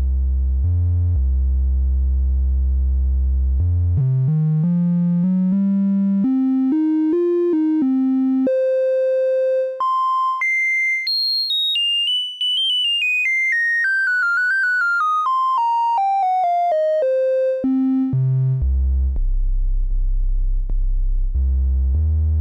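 Triangle-wave output of an Animodule Lil Monster analog VCO, an OTA-based triangle-core Eurorack oscillator. A low, steady tone steps up in pitch note by note over about seven seconds to a thin, high, pure whistle. It then steps back down note by note to the low tone.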